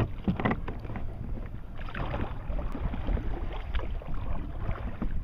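Wind rumbling on the microphone, with irregular splashes and sloshes of water against a kayak.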